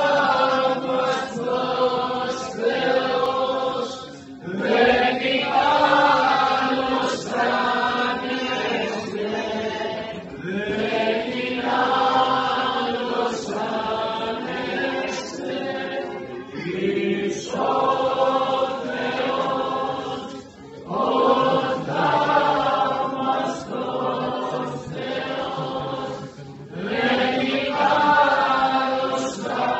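A congregation singing a chant together, in long phrases of about five seconds each, with short pauses for breath between them.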